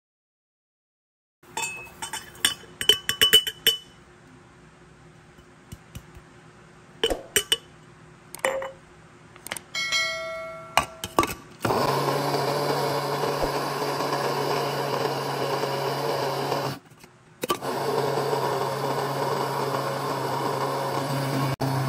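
Clinks and knocks as spices and the lid go into a stainless steel electric spice grinder, then its motor runs steadily, grinding the dried spices to powder. The motor stops briefly about two-thirds of the way through and then runs again.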